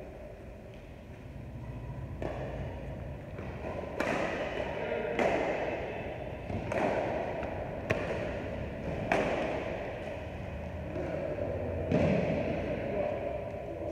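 Badminton racket strings hitting a shuttlecock in a rally: sharp cracks every one to two seconds, about seven in all, echoing through a large hall.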